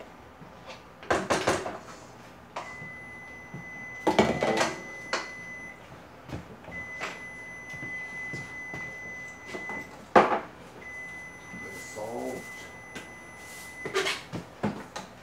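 Kitchen work at the counter: several sharp knocks and clatters of pots, utensils and containers being handled. A steady high-pitched whine switches on and off three times, for about three seconds each time.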